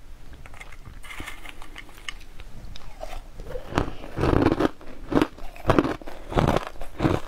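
A mouth chewing colored crushed ice: light scattered clicks at first, then from about four seconds in loud crunches, one about every half second.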